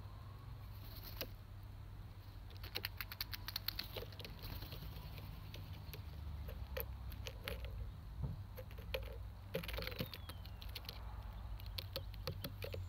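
A Eurasian magpie's feet and beak tapping and clicking on the slats of a wooden garden table as it hops about picking up peanuts in their shells. The taps are irregular, with a quick flurry a few seconds in.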